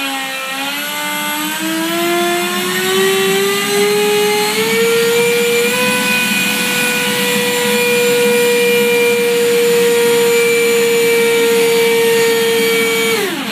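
Radio-controlled model jet's engine running at full power, a loud whine climbing in pitch over the first five seconds or so, then holding steady. Near the end it winds down quickly and stops.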